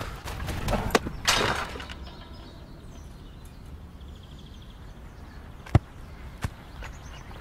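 A short rushing swish about a second in, then two sharp knocks, the first and louder about six seconds in, the second shortly after, over a low steady rumble.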